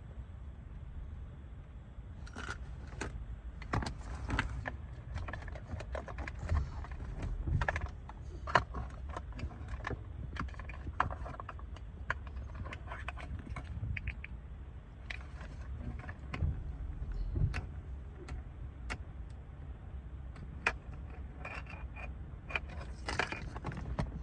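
Irregular light clicks, taps and rattles from hands handling the newly installed Android head unit and the dashboard around it, over a steady low rumble.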